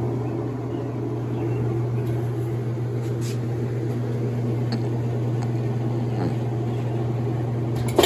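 Maytag Centennial direct drive washer running after repair, its motor and drain pump giving a steady low hum; the drain pump, freshly cleared of a jammed bra hook, now turns freely.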